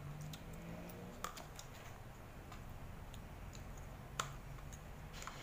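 Plastic spoons scraping and tapping against a plastic ice cream tub: scattered light clicks, with sharper ones about a second in and again past four seconds, over a faint low hum.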